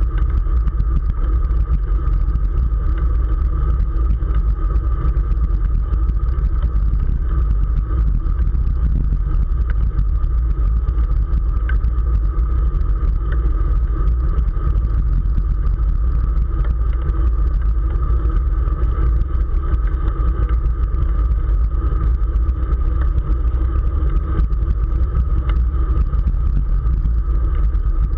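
Wind rushing over the microphone of a camera riding on a road bike at race speed: a heavy, unbroken low rumble with a steady hum above it.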